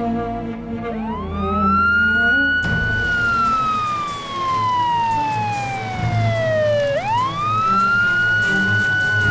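Police car siren wailing in slow cycles, starting about a second in: each cycle rises quickly, then falls slowly over several seconds, and a second cycle starts near the seven-second mark. Background music plays underneath.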